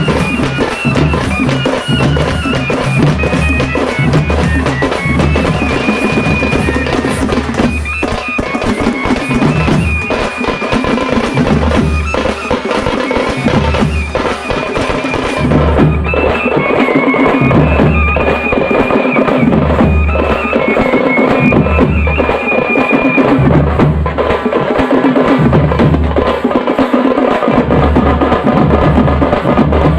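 Music: a shrill reed-like melody over drumming with a steady, heavy bass beat.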